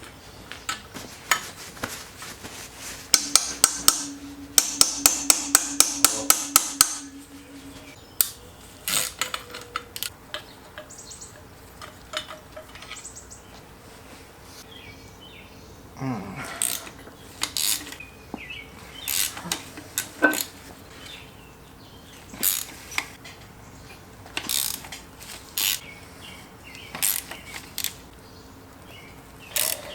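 Hand tools on a Porsche 944 engine being stripped to the bare block. A few seconds in comes a quick run of sharp metallic clicks, about four a second, for a few seconds. After that come scattered single knocks and clinks of metal on metal.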